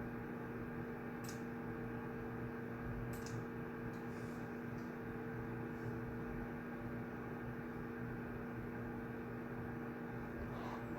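Room tone of a shared study room: a steady low hum with a few faint, scattered clicks and a brief rustle near the end.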